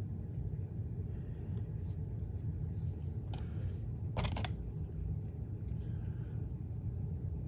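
Steady low background hum, with a few brief soft rustles of paper as small cardstock letters are handled and pressed onto a card; the clearest comes a little past the middle.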